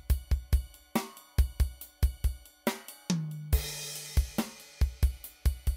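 Background music with a steady drum beat of kick, snare and hi-hat, with a cymbal crash and a held bass note about three and a half seconds in.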